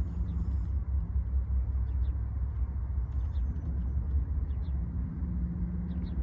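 Approaching Norfolk Southern diesel freight locomotive, still some way off, giving a low steady rumble that firms up slightly near the end.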